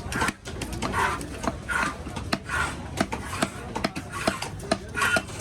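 Knife working a trevally on a wooden cutting board: repeated rasping scrapes roughly once a second, with sharp knocks of the blade on the board between them.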